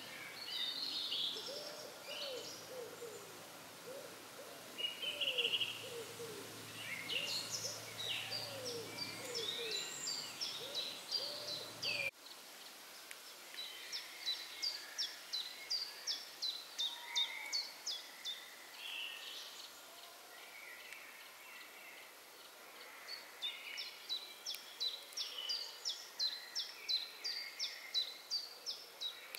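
Woodland birds singing: a run of low hooting notes over the first twelve seconds, then, after an abrupt change in the sound about twelve seconds in, a bird repeating fast, high, thin phrases of rapid notes, with scattered chirps.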